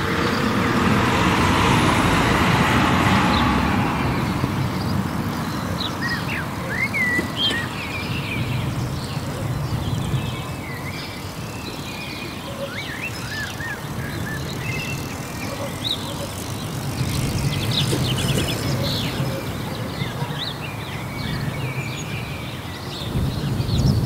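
Many short chirps from a flock of house sparrows, starting about six seconds in, over a steady low rumble. A rushing noise fills the first few seconds.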